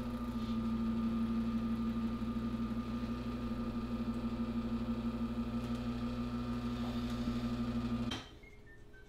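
Espresso machine pump running with a steady hum while a shot is pulled. It cuts off suddenly about eight seconds in.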